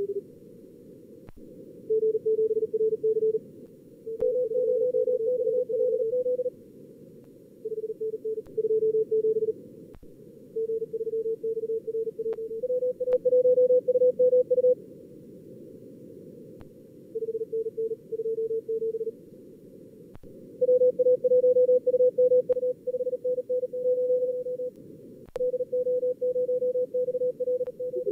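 Fast Morse code (CW) from a contest-logger practice simulator: keyed tones at two pitches, near 400 and 500 Hz, taking turns, over a narrow band of filtered receiver hiss. A few faint clicks sound among the tones.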